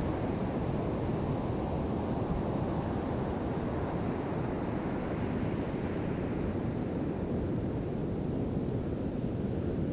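Ocean surf breaking and washing on a beach, a steady rush of waves with the hiss swelling around the middle and easing near the end, and wind rumbling on the microphone.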